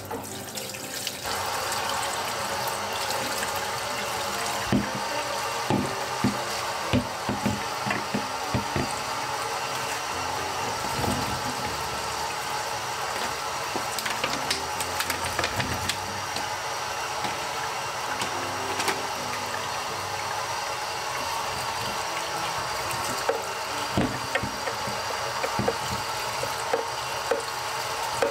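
Water running steadily from a tap, with scattered knocks and clinks.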